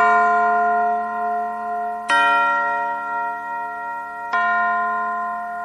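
Bell chimes in a music track, struck three times about two seconds apart, each ringing and slowly fading.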